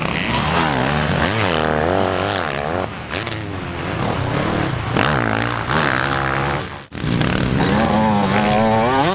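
Motocross bikes on a dirt track, engines revving hard and dropping back repeatedly as the riders work the throttle through corners and gear changes. The sound drops out for an instant about two seconds before the end, then another bike revs up.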